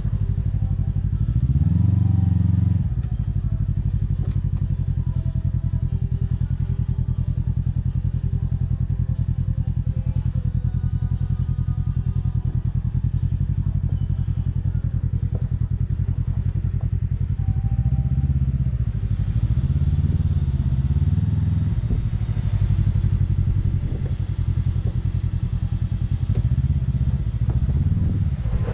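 Kawasaki Teryx KRX 1000 side-by-side's parallel-twin engine running low and steady while rock crawling. Several times the throttle is blipped and the revs rise and fall back: near the start, twice in the latter half and again near the end.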